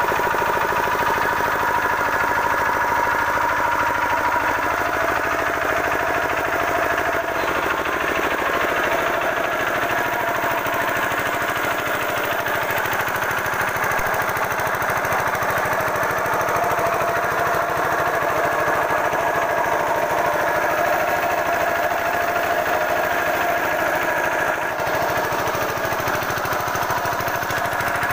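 5 hp Kirloskar Varsha single-cylinder diesel engine running steadily with a fast, even beat, driving a 5 kVA alternator.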